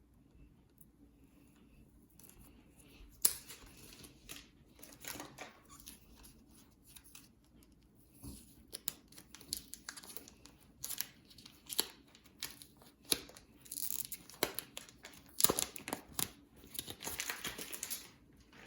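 Protective plastic wrapping being torn and peeled off a new hairdryer: irregular rips and crinkles starting about three seconds in and coming thicker toward the end.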